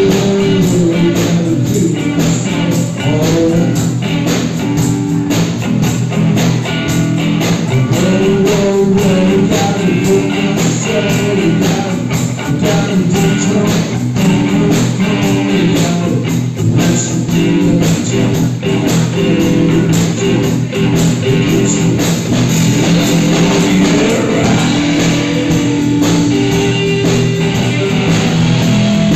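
Live rock band playing loudly: electric guitars over bass and drums, with a lead line bending up and down in pitch.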